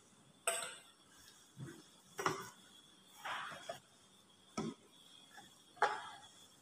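Plastic reagent bottles being handled and set down on a lab bench: about six separate knocks and clunks over several seconds, with a short scrape near the middle.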